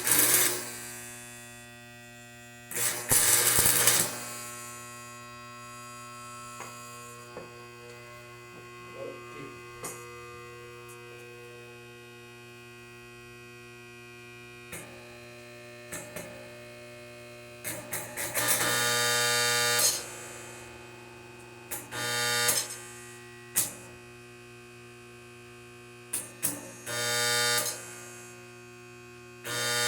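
Arc-welding machine humming steadily, with about five short bursts of crackling stick-welding arc, the longest about two seconds, as tack welds are laid.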